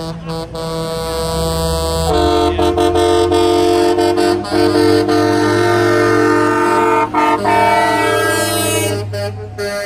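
Semi-truck air horns blowing long, chord-like blasts that swell about two seconds in and hold with a few short breaks, over the low, steady rumble of diesel truck engines.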